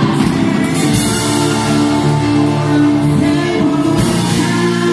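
Live church band music played loud and steady, with long held chords.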